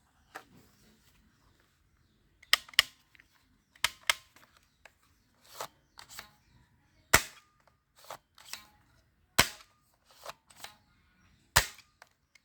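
Toy gun firing: a series of sharp snapping shots at uneven intervals, some in quick pairs about a third of a second apart.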